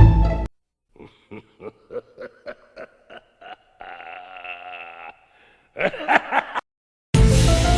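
A laughing sound effect: a run of short giggles, then a drawn-out note, then a few louder bursts of laughter. Music stops about half a second in and new music starts near the end.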